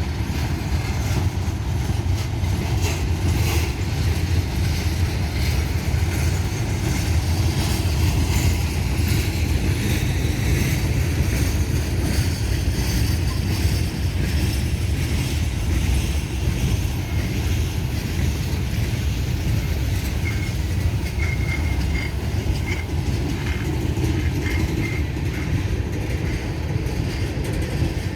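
Freight train cars rolling slowly past at about 10 mph, making a steady low rumble of wheels on rail. A few brief high squeaks come in about two-thirds of the way through.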